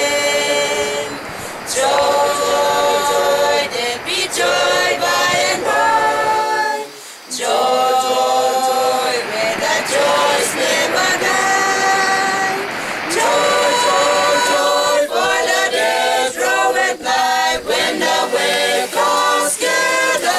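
Unaccompanied choral singing: a group of voices holding notes together in phrases, with short pauses between them.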